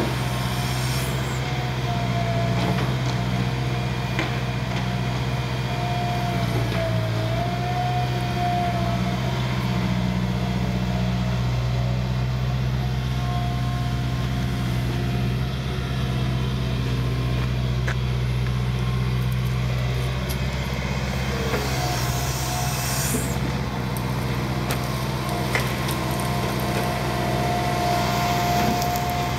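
Liebherr 934 long-reach excavator's diesel engine running steadily under working load, with a hydraulic pump whine that wavers up and down in pitch as the boom and bucket move. A short rushing noise comes about two-thirds of the way through.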